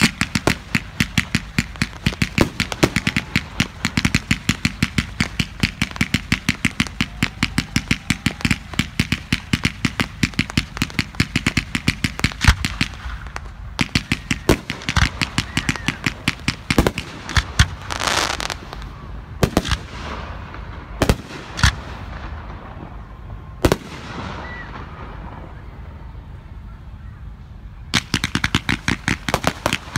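Fireworks display firing rapid volleys of sharp reports, several a second. The barrage thins out about halfway, with scattered bangs and one longer hissing whoosh, then falls to a lull with a fading hiss before rapid firing starts up again near the end.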